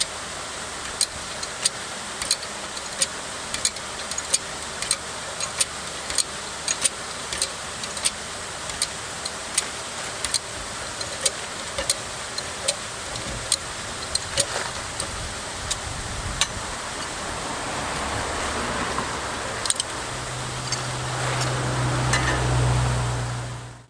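Steady rush of water running out through a partly raised reservoir gate, with a regular metallic click about every two-thirds of a second from a high-lift jack being worked by its handle. The clicks stop about fifteen seconds in, and a low rumble comes in near the end.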